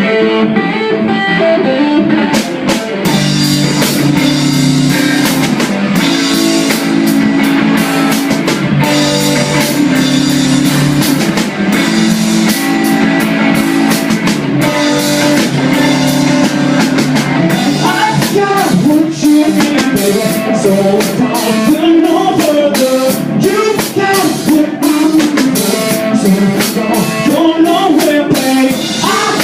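Rock band playing: guitar chords over a drum kit, with the drums coming in about two seconds in.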